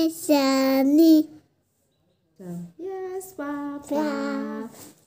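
A young boy singing in long held notes, breaking off about a second and a half in and then carrying on with several more.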